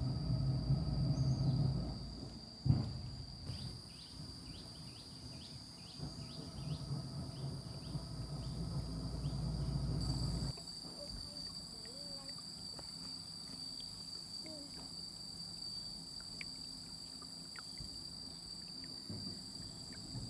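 Insects droning with a steady high whine along a jungle river. In the first half there is a low rumble that cuts off abruptly about halfway through, a single sharp knock a little under 3 s in, and a run of short falling chirps.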